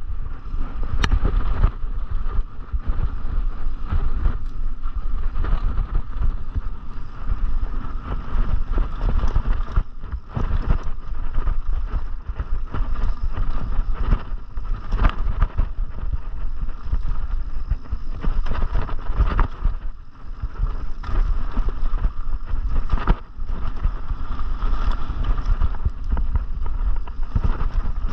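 A mountain bike riding down a dirt trail, heard from a camera on the bike or rider. Wind buffets the microphone and the tyres roll over packed dirt, with frequent knocks and rattles from the bike as it hits roots and bumps.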